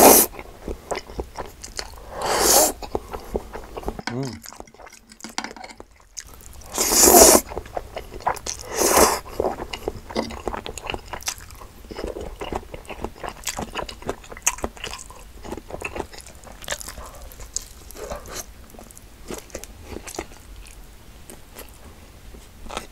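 Close-miked eating sounds of fried chicken and carbonara pasta: a few loud noisy bursts of eating near the start and again about seven to nine seconds in, then steady chewing with many small wet mouth clicks.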